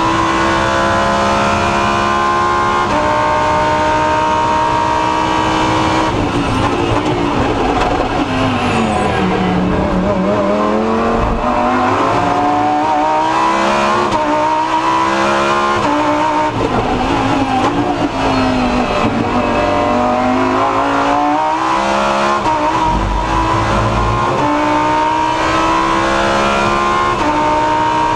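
Lamborghini Huracán Super Trofeo's V10 engine, heard from inside the race car's cockpit at full racing pace. It holds high revs with stepped gear changes, then twice falls away through downshifts under braking for a corner and climbs again as the car accelerates out. In the last third it is back at high revs, running flat out.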